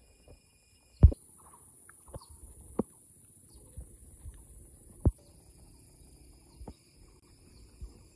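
Insects chirring steadily at a high pitch, with a few scattered thumps, the sharpest about a second in and about five seconds in.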